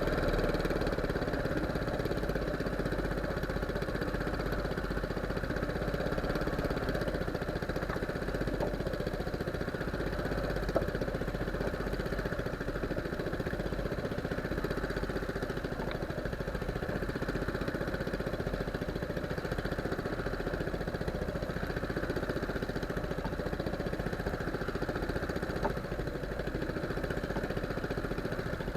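Boat engine running steadily at an even speed, with a couple of faint knocks.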